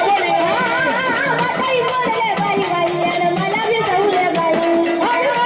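Marathi folk gaulan song: a woman singing a wavering, ornamented melody over a steady beat of frame drum and drums, with a small plucked string instrument.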